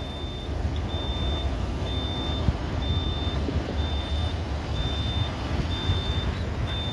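A vehicle's reversing alarm beeping, one high tone about once a second, over a steady low rumble.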